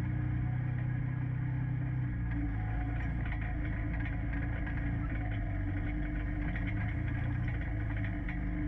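Four-seater UTV side-by-side's engine running steadily as it drives along a trail, its note dropping a little about two seconds in.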